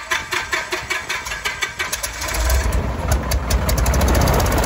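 Cessna 172's piston engine starting: a quick run of firing strokes that speeds up, then about two seconds in the engine catches and settles into a steady run, its propeller turning.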